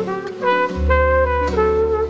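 Background music: a jazzy tune with a brass melody over a bass line.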